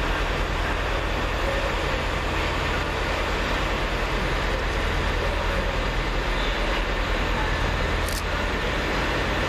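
Pair of Class 387 Electrostar electric multiple units approaching and running in alongside the platform: a steady rumble and hiss of wheels on rail and traction equipment.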